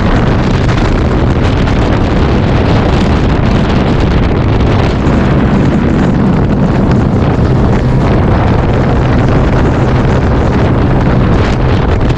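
Sea-Doo personal watercraft engine running steadily under way, with heavy wind buffeting the microphone.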